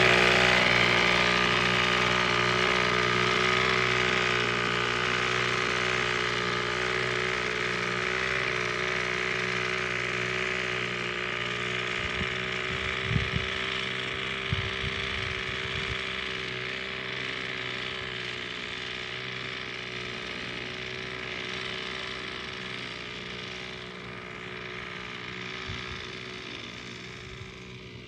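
Backpack motorized mist sprayer's small two-stroke engine running steadily, growing gradually fainter as the sprayer is carried away.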